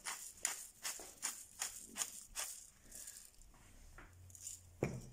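Hand-twisted pepper mill grinding mixed peppercorns, a rasping stroke about two and a half times a second, stopping about halfway through. A single sharp knock near the end.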